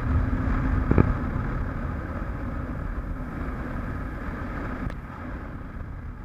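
Motorcycle riding at speed: steady engine drone under wind rushing over the camera microphone, with a sharp knock about a second in.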